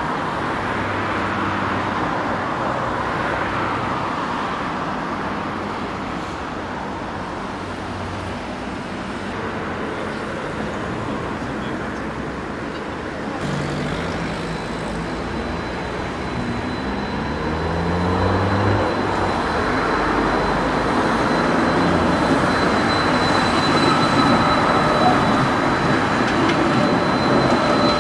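Road traffic noise, then a Stadler Variobahn low-floor tram approaching and passing close on a curve. About halfway through its drive whines upward in steps, a thin high-pitched wheel squeal sets in, and the sound grows louder toward the end.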